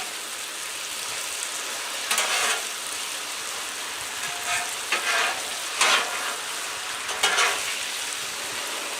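Sauced chicken sizzling on a Blackstone flat-top griddle, its sugar caramelizing, with about five louder strokes of a spatula stirring and scraping it.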